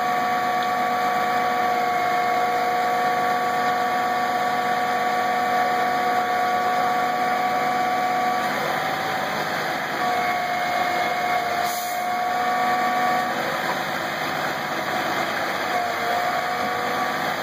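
Utility bucket truck's engine running its boom hydraulics, with a steady whine from the hydraulic system that shifts pitch a couple of times about halfway through as the boom and jib take load.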